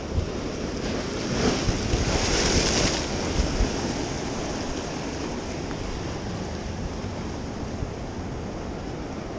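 Ocean surf breaking and washing over the rocks of a jetty, with one louder wave crash about a second and a half in, then a steadier wash. Wind buffets the microphone.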